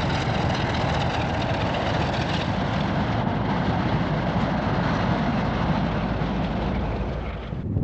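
Diesel locomotive running steadily as it hauls a train past, a continuous low engine note under dense noise, cutting off abruptly near the end.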